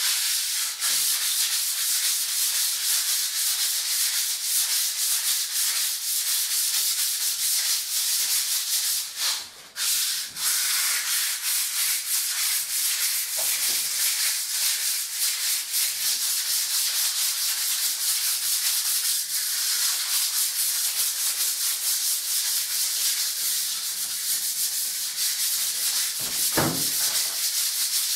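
Hand sanding of a filled plaster wall with fine P180 sandpaper: continuous rasping back-and-forth strokes, with a short break about nine seconds in. The even, smooth sound is a sign that the wall surface is smooth.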